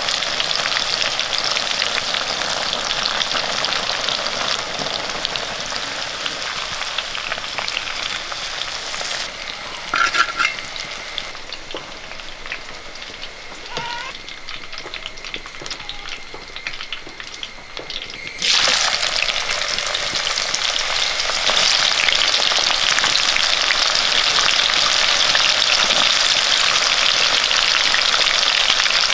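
Raw mango slices shallow-frying in hot sesame oil in an iron kadai, a dense crackling sizzle. About nine seconds in it drops to a quieter sizzle with a couple of short clinks, then about eighteen seconds in it comes back louder, with a fresh batch of slices in the oil.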